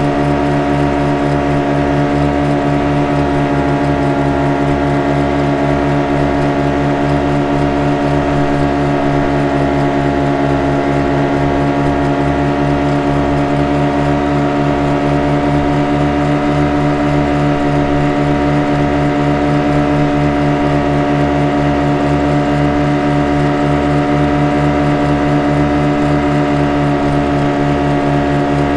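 Motorboat engine running at a constant speed: an even, unchanging drone.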